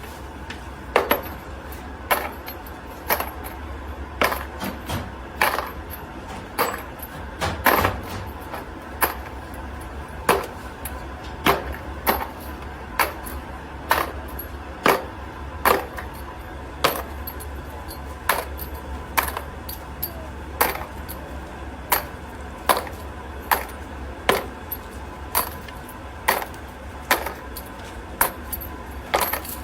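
Metal parts clinking sharply and regularly, about once a second, over the steady low hum of running machinery.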